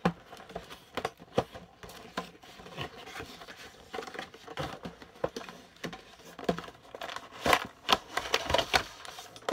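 Cardboard box and clear plastic tray of an action figure package being handled: scattered clicks, taps and plastic crinkles as the tray is slid out of the box, busiest and loudest near the end.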